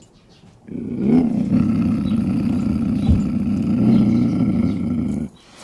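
Lion growling: one long, low growl that starts just under a second in and stops shortly before the end.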